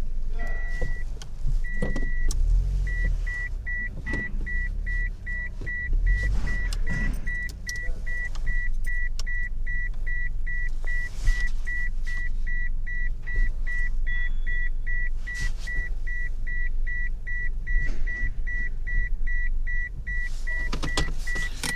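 A car's electronic beeper sounding one high tone over and over: a few longer beeps, then short quick beeps about two or three a second. A low rumble runs underneath, with a few scattered knocks.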